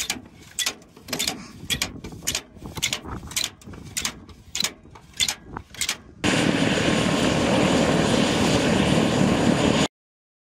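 Sharp metal clicks and clanks as rockets are pushed by hand into a 20-tube helicopter rocket pod. About six seconds in, this gives way to the loud, steady noise of a helicopter in flight, which cuts off suddenly near the end.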